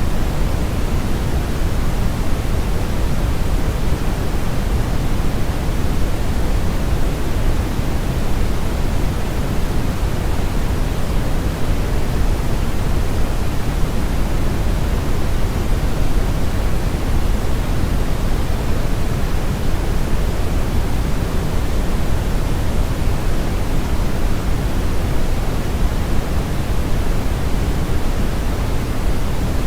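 Brown noise blended with white noise: a steady, unbroken hiss weighted heavily toward the low end, with no changes.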